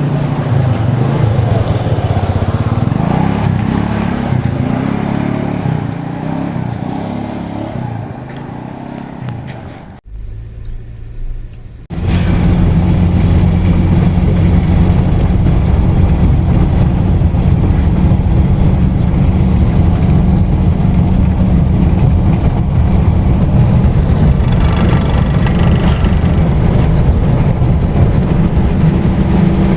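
A motor vehicle's engine running, its pitch shifting for the first ten seconds or so. After a brief break about ten seconds in, it runs steadily and louder.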